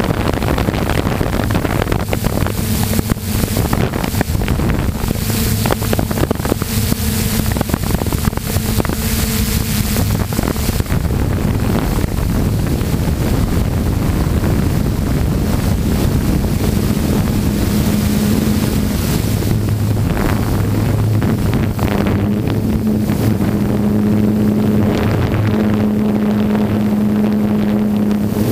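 Electric radio-controlled aircraft's motors and propellers droning steadily in flight, heard from the onboard camera with wind noise on the microphone. The wind noise is heaviest in the first half, and the drone grows stronger in the second half.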